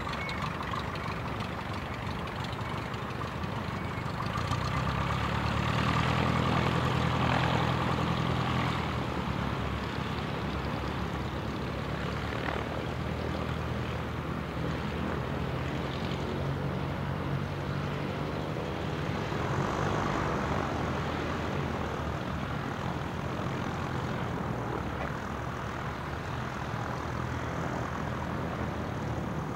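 Piston-engined light aircraft taxiing, engine and propeller running low and steady near idle. It grows louder from about four to nine seconds in, and again briefly around twenty seconds.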